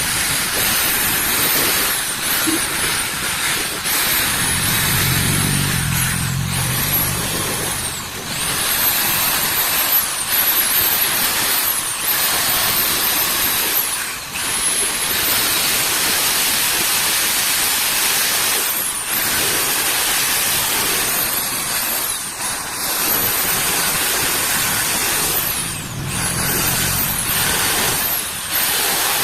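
A high-speed power tool working metal in repeated passes several seconds long, with a rasping hiss and a thin high whine that sags and recovers as it is loaded.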